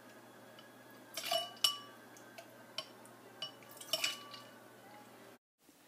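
Metal spoon clinking against a glass with ice in it: several light, separate taps, each with a brief high ring.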